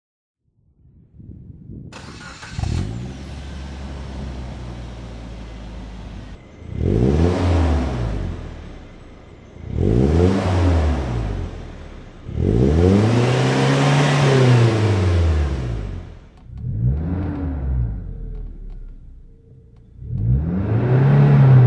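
Suzuki Jimny Sierra (JB43W) 1.3-litre four-cylinder engine breathing through a Monster Sport Type Sp-X aftermarket muffler. It starts up about two seconds in and idles, then is revved in place five times, each rev rising and falling back, the middle one held longest.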